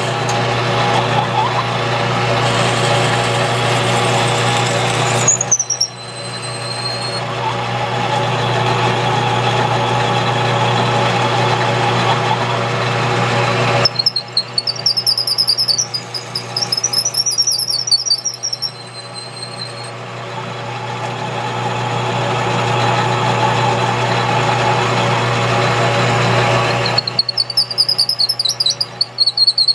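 Metal lathe running with a twist drill in the tailstock chuck boring into a spinning wooden handle: a steady motor hum under the rasp of the bit cutting wood, in three long spells broken by pauses. High warbling squeals sound in the pauses, around the middle and near the end.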